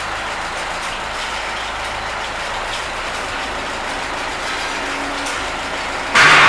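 Ford tractor engine idling steadily. A sudden loud burst of noise cuts in about six seconds in.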